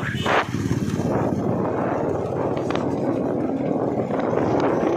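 Motorcycle engine running while riding along, with wind rushing over the microphone.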